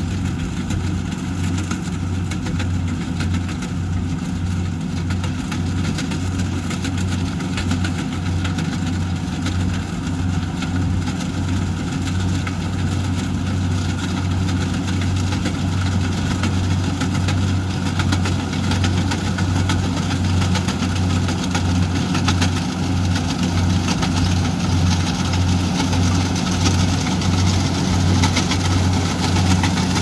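Kubota tracked rice combine harvester's diesel engine running steadily as the machine cuts rice, growing somewhat louder as it comes closer.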